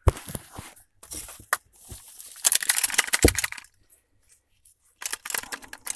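A removed car seatbelt retractor and its metal latch plate clicking, clinking and rattling as they are handled and tugged, with one heavier knock about three seconds in. The retractor stays locked, so the webbing will not pay out.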